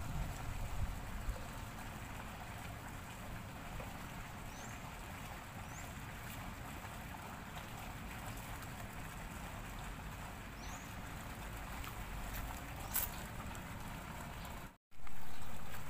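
Steady outdoor background hiss of wind and water at a fish pond, with a few faint high chirps, a brief click about thirteen seconds in, and a sudden short dropout then a louder burst near the end.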